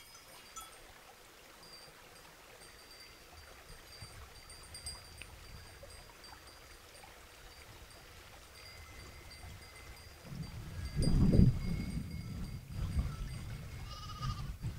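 A flock of sheep grazing, with faint high ringing tones throughout. A louder low rustling comes about ten seconds in, and a short sheep bleat near the end.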